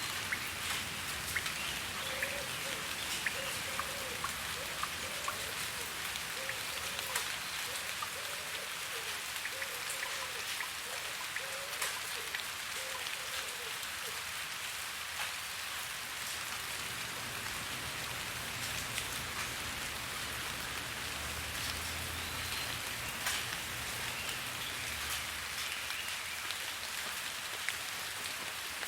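Steady rain falling, with individual drops ticking on a surface.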